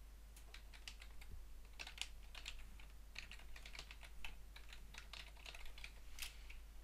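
Computer keyboard typing: irregular quick runs of keystrokes as a class name is typed out.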